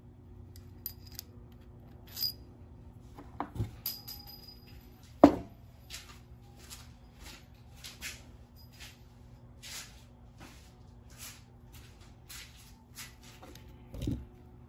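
Scattered light clicks and taps of small tools and parts being handled on a workbench, with a sharp louder knock about five seconds in and another near the end, over a faint steady hum.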